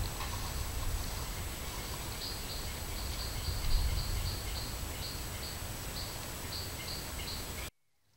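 Outdoor ambience through a Moultrie M-999i trail camera's microphone: steady hiss and low rumble with a faint steady high whine, and from about two seconds in a run of short high chirps at irregular intervals. The recording cuts off suddenly near the end.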